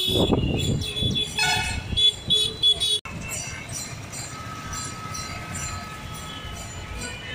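Busy city road traffic: engines of passing autorickshaws, motorbikes and cars, with several short vehicle horn toots about two to three seconds in. After a sudden break about three seconds in, the traffic noise goes on more evenly and a little quieter.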